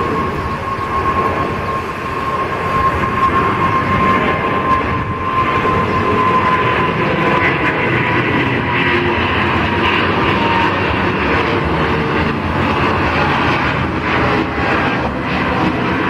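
Boeing 777 airliner's twin turbofan engines at takeoff climb thrust, passing close overhead: a loud, steady jet roar that swells over the first few seconds, with a high fan whine that slowly drops in pitch as the aircraft goes by.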